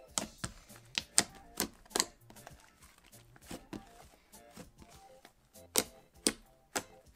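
Fluffy slime being kneaded and squeezed by hand, giving off irregular sharp pops and clicks as trapped air squelches out, about a dozen in a few seconds. Faint background music under it.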